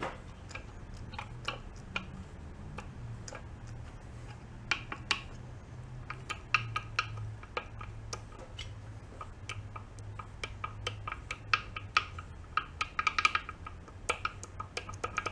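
Light metallic clicks and taps of a compressor pump's crankcase parts being handled and turned by hand, coming more often near the end, over a steady low hum.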